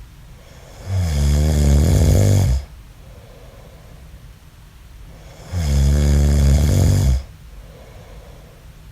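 A man snoring: two loud, low snores, each about a second and a half to two seconds long and about four and a half seconds apart, with quieter breathing between them.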